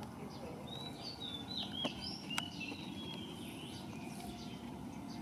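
Small birds chirping: a quick run of short, high, up-and-down chirps over a couple of seconds, over a steady low background noise, with two sharp clicks in the middle.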